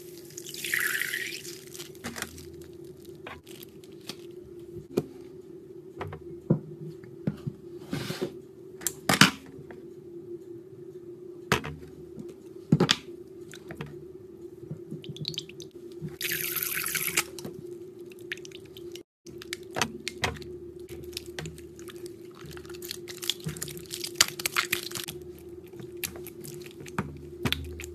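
Slime being squeezed and pressed by hand in a bowl of water: wet squelches, sharp pops and clicks, and two short splashy hisses, one right at the start and one about halfway through. A steady low hum runs underneath.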